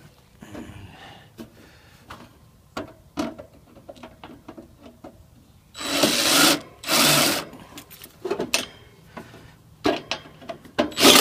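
Cordless drill-driver running in short bursts, twice about six and seven seconds in and again near the end, driving screws into a blower motor mount, with metal clicks and knocks between.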